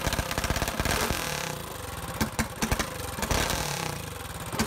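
Freshly built Ducar 212cc single-cylinder hemi engine with a Tillotson carburetor running, its speed rising and falling unevenly. It is running way rich, with the low-speed mixture screw about 2.5 turns out.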